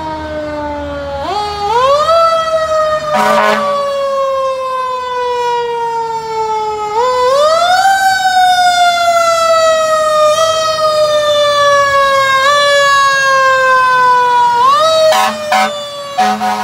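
Fire truck's mechanical siren winding up quickly and coasting slowly down in pitch, three times over. Short horn blasts cut in about three seconds in and again near the end.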